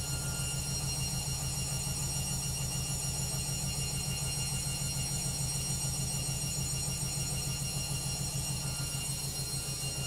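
LOGIK front-loading washing machine on an intermediate spin: the drum spins at a steady speed with a low motor hum and a steady high-pitched whine.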